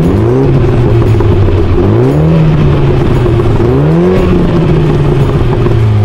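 MINI Cooper hatch's turbocharged four-cylinder engine, heard through its twin centre exhausts, blipped three times from idle, about two seconds apart; each rev rises in pitch, holds briefly and settles back to idle.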